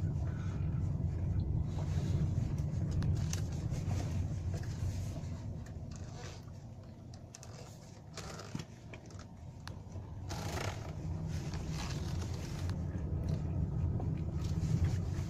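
Low road and tyre rumble inside a Hyundai i40's cabin on a rough road, with scattered light knocks that the owner takes for play in the steering rack on the left side. The rumble drops for a few seconds in the middle.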